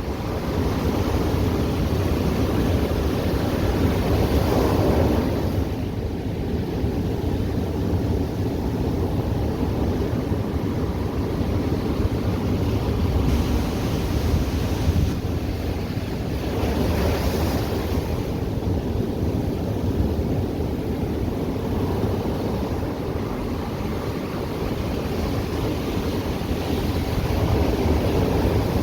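Ocean surf breaking and washing on the shore in a continuous rush, with two louder waves about 5 seconds and about 17 seconds in. Wind buffets the microphone underneath.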